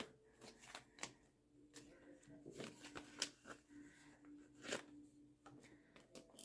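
Clear plastic zip envelopes in a ring binder being handled and flipped: faint, scattered crinkles and light clicks.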